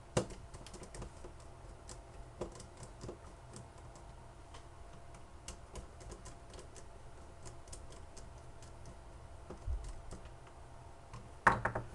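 Light, irregular clicking and tapping of a small screwdriver and tiny screws as the screws holding a phone's touchscreen digitizer are worked out, with a sharper click at the start and a louder knock near the end.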